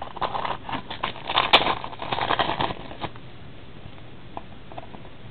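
Rustling and crackling of trading-card packs and cards being handled, with a sharp click about a second and a half in; it dies down after about three seconds.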